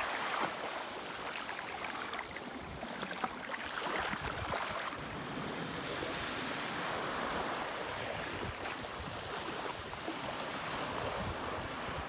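Small waves lapping and washing on a sandy beach at the water's edge.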